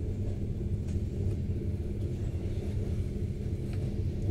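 ED4MK electric commuter train running along the track, heard from inside the passenger car: a steady low rumble with a constant hum beneath it and a few faint ticks.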